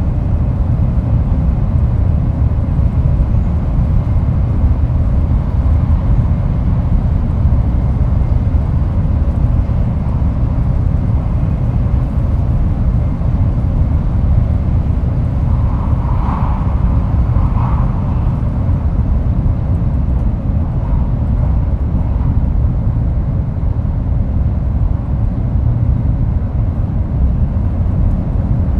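Sanyo Shinkansen Kodama train running, heard from inside the car by the doors: a steady low rumble of wheels and running gear. About halfway through, two short higher sounds rise briefly above it.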